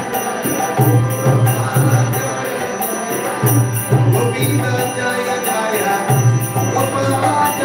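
Devotional bhajan music. A man sings over a harmonium. A mridanga drum beats a recurring deep stroke, and karatala hand cymbals jingle in a steady rhythm.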